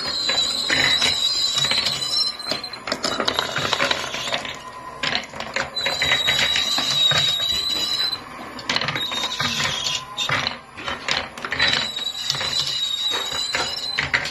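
Marbles rolling and clattering down a handmade wooden marble run, a dense rattle of clicks and knocks. A high, thin, steady ringing tone comes and goes three times.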